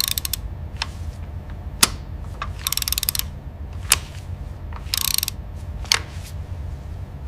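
Engine assembly-line machinery: a steady low hum with sharp single clicks every two seconds or so, and two short bursts of rapid ratcheting.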